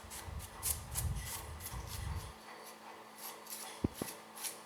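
Rubbing and scraping as hands work on an opened laptop's insides, a run of short scratchy strokes with a low handling rumble in the first two seconds and two soft knocks near the end.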